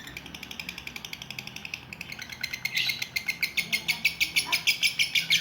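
Lovebird's ngekek, the long chattering trill prized in lovebird contests: a rapid, even run of high chirps that grows louder toward the end.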